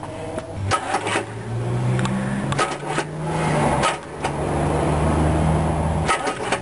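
Starter cranking a freshly rebuilt Chevrolet engine in short bumps, with a steady drone and a few clicks: a break about four seconds in, then a second bump that stops about six seconds in. With no distributor fitted it turns over without firing, being jogged to bring the number one piston up and the timing marks into line.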